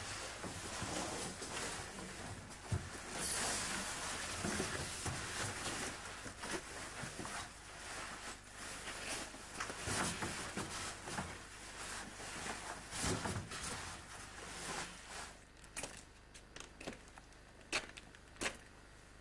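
Rustling and knocking of cardboard sheets and wooden boards being shifted and handled, with irregular clunks. About three-quarters of the way in, this gives way to separate footsteps on a stony dirt path.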